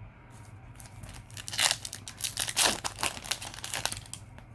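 Foil trading-card booster pack wrapper crinkling and tearing as it is opened, a run of crackly rustles starting about a second in.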